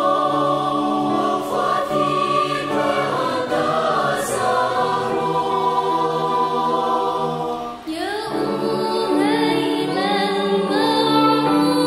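Mixed student choir singing an Arabic qasidah in sustained harmony. About eight seconds in the texture changes: a female soloist with a wavering voice takes the melody over a held choral note.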